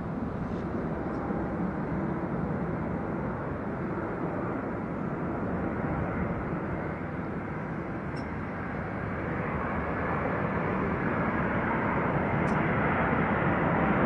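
Jet engine noise from a McDonnell Douglas MD-11's three turbofans on short final approach, a steady rushing roar that grows louder over the last few seconds as the aircraft comes closer.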